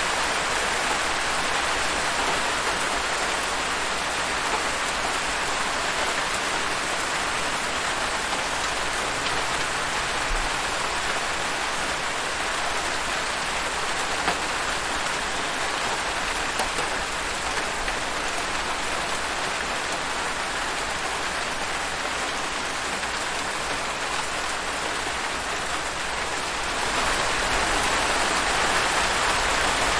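Steady rain falling, an even hiss of countless drops, growing a little louder about three seconds before the end.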